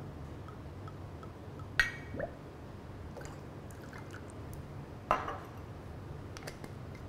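Hazelnut syrup poured from the bottle into a stainless steel jigger and tipped into a metal cocktail shaker. Two sharp metal clinks ring out, about two seconds in and about five seconds in, as the jigger knocks against the shaker and the counter.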